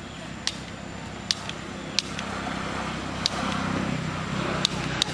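A motor vehicle's engine running in the background, a low hum that grows louder about three seconds in, with sharp, short clicks at irregular intervals, about one to two a second.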